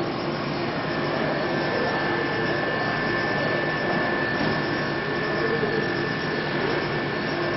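High-speed milling machine spindle driving a small end mill through a metal block. Cutting noise runs under a steady high whine that comes in about a second in.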